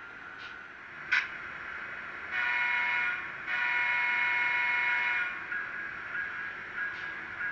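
HO-scale Atlas Genset locomotive's sound decoder blowing two horn blasts through its small onboard speaker, the second longer than the first, the two-blast signal that the train is about to proceed. A sharp click comes about a second in, before the horn.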